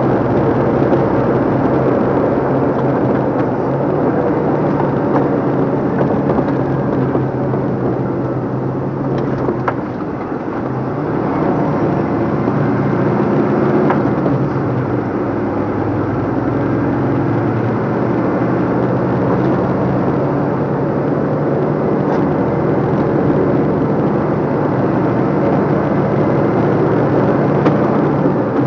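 Cab of a 2014 DAF LF55 220 manual diesel truck on the move: a steady engine note with road and tyre noise. About ten seconds in the engine note drops briefly, then picks up again at a slightly different pitch.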